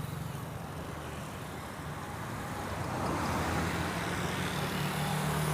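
Busy road traffic: vehicle engines running and tyre noise, swelling louder about three seconds in as a vehicle comes close.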